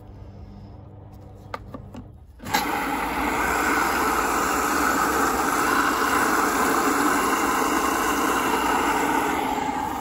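Water rushing into a Hoover washing machine through its inlet valve and detergent drawer. It starts suddenly a couple of seconds in and then runs steadily.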